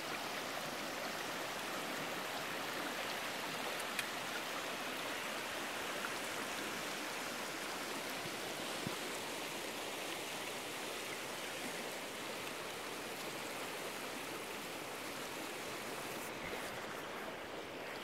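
Shallow, silty river rushing over gravel and cobble bars: a steady, even hiss of flowing water, with a few faint clicks.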